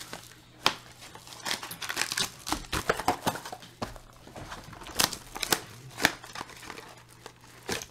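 Foil trading-card packs crinkling as they are pulled from a cardboard box and laid on the table, with scattered sharp clicks and taps from the handling.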